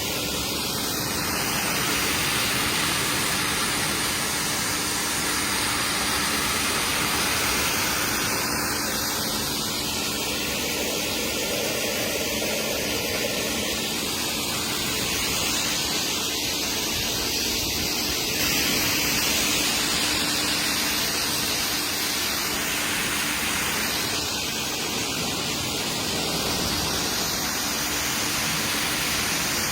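Pressure washer spraying water onto a car: a steady hiss of spray whose tone shifts slowly, with a faint hum underneath.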